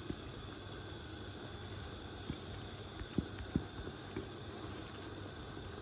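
Thick cream and cheese sauce bubbling gently in a pan, a faint steady hiss with a few soft pops in the middle.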